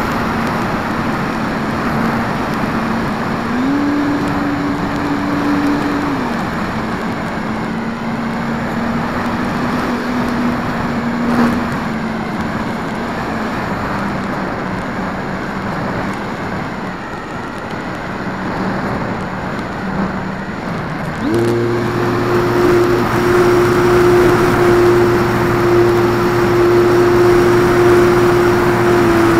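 Art-Tech Cessna 182 RC plane's electric motor and propeller whining steadily under a heavy rush of airflow, heard from a camera mounted on the plane. The pitch steps up briefly a few seconds in, then drops lower, then jumps higher about 21 seconds in as the motor speeds up and holds there.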